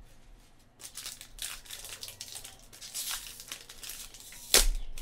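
Wrapper of a Select AFL Certified trading card pack being torn open and crinkled by hand, a scratchy run of crackling, with one sharp, louder snap near the end.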